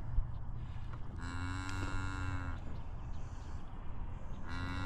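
Newborn beef calf bawling while held: one long call of steady pitch about a second in, and a second call starting near the end.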